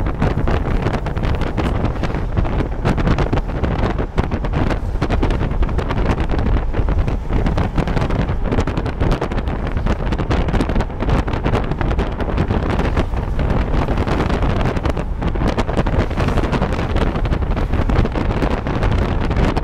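Wind rushing and buffeting over the microphone of a camera held at a moving car's window, steady throughout, with road noise from the car underneath.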